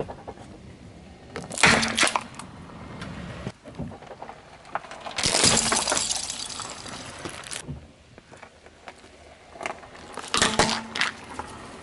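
Car tyre rolling over and crushing small plastic toys and a little bottle on asphalt: a burst of sharp cracks about a second and a half in, a dense crackling crunch lasting about two seconds from around five seconds in, and another cluster of cracks near the end.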